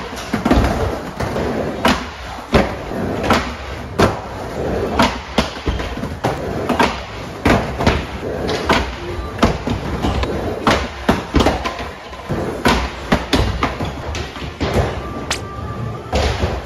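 Skateboard on an indoor mini ramp with metal coping: wheels rolling over the ramp surface, broken by many sharp clacks and thuds as the board hits the deck and coping during trick attempts.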